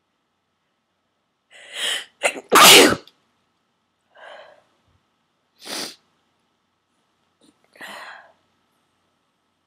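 A person's forceful sneeze: a breathy intake, a short catch, then one loud explosive sneeze about two and a half seconds in. Three shorter, quieter breaths follow.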